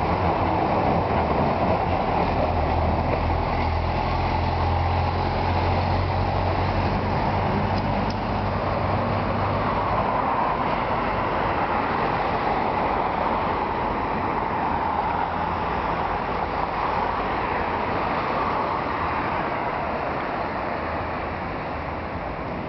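Street traffic noise, with a vehicle engine's low hum for about the first ten seconds before it fades away.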